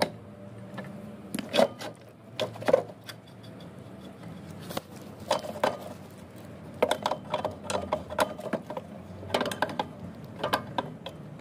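Hand tools, a wrench and a screwdriver, clinking, tapping and knocking on the water pump's metal fittings and its steel housing in irregular clusters of sharp clicks. A low steady hum runs underneath.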